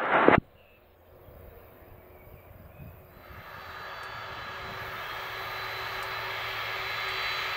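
Boeing 767-300ER's twin jet engines during the landing roll-out: a steady rush with a high whine, faint at first and growing louder from about three seconds in.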